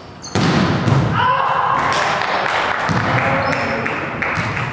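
A sharp hit about a third of a second in as a volleyball rally ends at the net, followed by loud shouting and yelling from the players in the gym hall.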